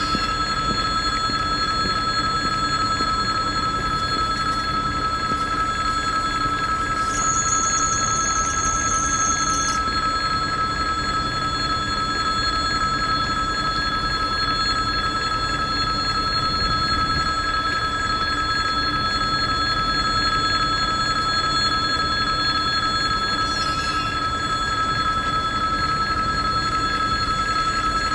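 Level-crossing warning bell ringing continuously and steadily while the barrier is down, over a low background rumble.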